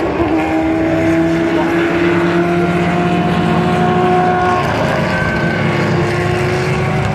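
A pack of Group C prototype race cars running past at a slow, even pace behind the safety car, several engines each holding a steady note.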